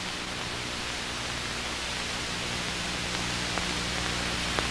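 Steady hiss with a low hum from an old film soundtrack, with a couple of faint clicks.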